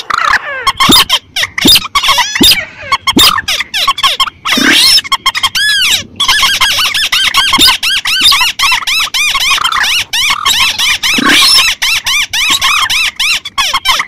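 Blended bird-lure recording of rail calls (swamphen, crake and slaty-breasted rail) playing as a dense, loud chorus of rapid squeaky notes, each rising and falling in pitch, several layers overlapping, with a brief pause once or twice.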